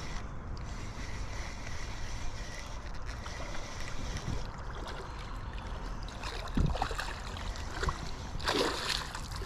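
Steady rush of river water, with a hooked striped bass splashing at the surface a few times in the last seconds, the loudest splash near the end.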